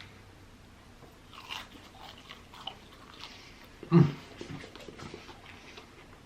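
A person chewing and biting fries close to the microphone, with soft wet mouth clicks, and one louder short thud about four seconds in.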